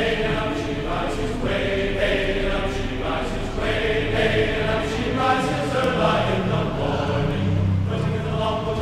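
Music with several voices singing together, in a choir-like chant.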